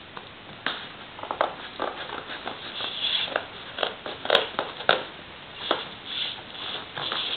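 Packing tape crackling and tearing as a tape-wrapped cardboard parcel is cut open, with scissors snipping; a string of irregular short crackles and clicks with a few brief hissing tears.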